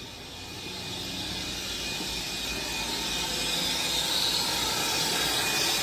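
Plumber's soldering torch flame burning with a steady hiss, growing gradually louder.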